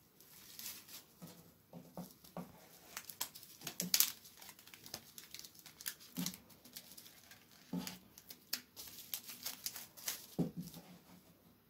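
Clear plastic cling film crinkling and crackling in the hands as it is stretched over the end of a cardboard tube and gathered around it. The crackles come irregularly, with a few louder pops.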